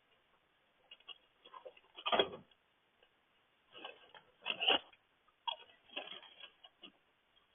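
Irregular clusters of small clicks and taps, the loudest about two seconds in and again near the middle, picked up through a doorbell camera's narrow-band microphone.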